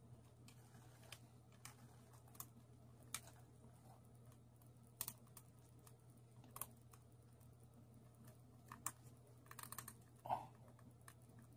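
Faint, irregular clicks and taps of plastic statue parts being handled and fitted together, over a low steady hum.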